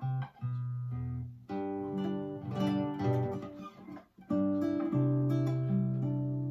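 Nylon-string classical guitar (Valencia VC104EBK) strung with Ernie Ball Ernesto Palla black and gold nylon ball-end strings, played as plucked chords and ringing bass notes. It comes in short phrases with brief breaks, about a second and a half in and again around four seconds in.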